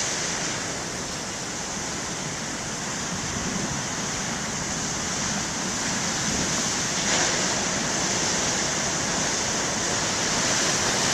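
Heavy ocean surf: big waves breaking and washing on a rocky shore, a steady rushing roar that swells a little about three seconds in and again about seven seconds in, with some wind noise.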